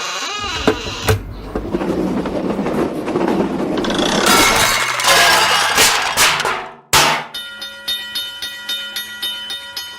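A train passing, a loud rushing clatter that cuts off abruptly about seven seconds in. It is followed by a railroad crossing bell ringing in a steady, quick rhythm of about three strokes a second.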